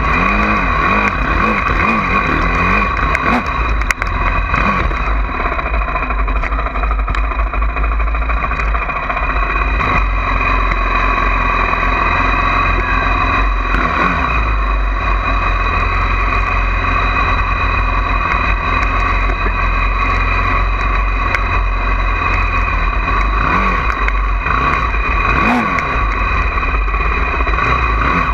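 Honda CRF450R single-cylinder four-stroke dirt bike engine running while ridden, with a few revs up and down heard as rising and falling pitch near the start and again near the end, over a steady low rumble.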